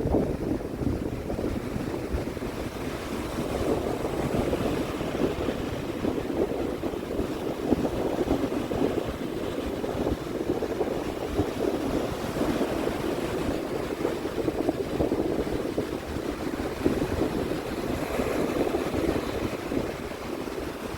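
Sea waves washing in continuously, a steady surging rush, with wind buffeting the microphone.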